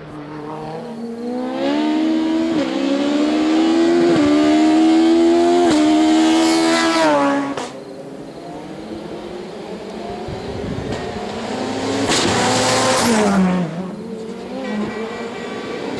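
Touring race car engines on a hillclimb. One revs hard up through the gears, its pitch climbing and dropping at each upshift, then falls away abruptly. A second car passes at high revs about three-quarters of the way through, its note falling as it goes by, and another begins accelerating near the end.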